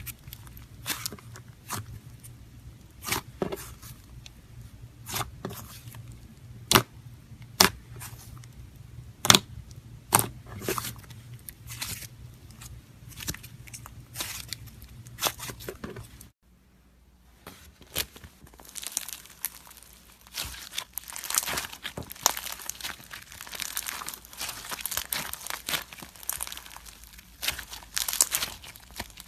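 Slime being squeezed and pressed by hand, giving separate sharp pops and clicks over a low hum. After a short break about halfway through, a denser run of crinkly crackling follows.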